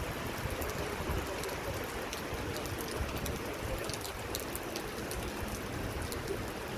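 Steady rain falling, with many small ticks of individual drops landing close by.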